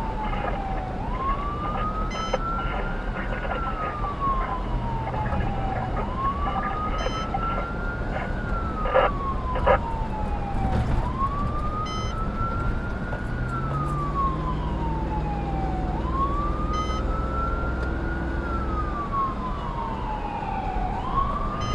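Fire department response vehicle's siren on a steady wail, rising and falling in pitch about every five seconds, heard from inside the vehicle over road noise. About nine seconds in, two short knocks as the tyres cross railroad tracks.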